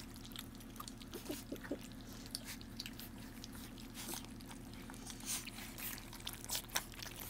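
Bullmastiff puppies licking and smacking at wet puppy mush: an irregular run of soft wet clicks and slurps, a few louder ones about five to seven seconds in.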